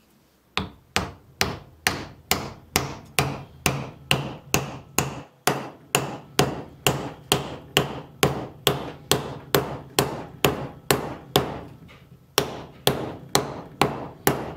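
Steady hammering, a little over two blows a second, with a short pause about twelve seconds in before the blows carry on.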